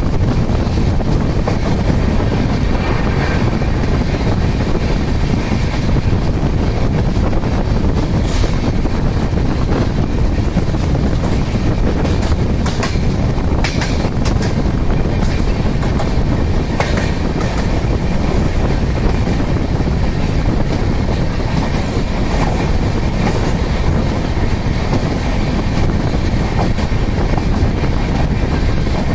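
Express train running at speed, heard from on board: a loud, steady rumble of wheels on rail, with scattered sharp clicks from rail joints, most of them bunched around the middle.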